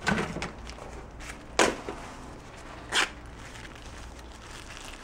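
Hands rummaging through a cardboard box of small loose items such as pens and markers. There is rustling, then two sharp clacks of objects knocking together, about a second and a half apart.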